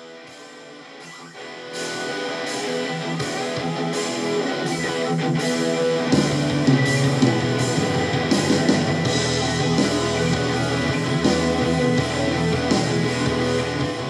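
Rock song with electric guitar playing through the VeGue 1088 Bluetooth karaoke speaker. It starts quietly, the full band comes in about two seconds in, and the low end fills out about six seconds in. The reviewer judges the speaker pretty lacking in bass but good on rock music.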